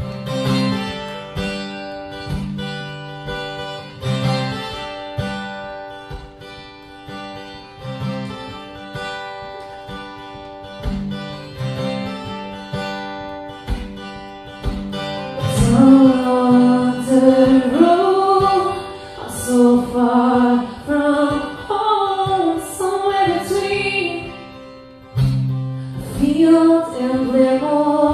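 Live solo acoustic guitar playing a song's intro, chords strummed in a steady rhythm about once a second; about halfway in a woman's singing voice comes in over the guitar.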